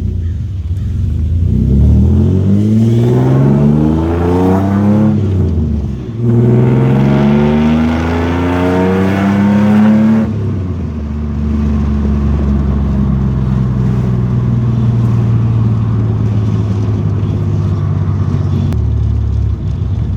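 Toyota 3.4-litre 5VZ V6 with TRD headers and a 2.5-inch side-exit exhaust through two Magnaflow resonators, accelerating hard in first gear, dipping briefly at the shift to second about five seconds in, then climbing again through second gear. At about ten seconds the revs fall back to a steady cruise, dropping lower near the end; heard from inside the cab with the windows down.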